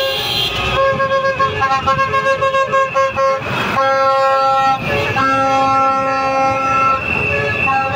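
Several motor vehicle horns hooting together in long, steady blasts, with a run of quick short toots, about five a second, from about one to three seconds in. Passing motorists are hooting in support of street protesters.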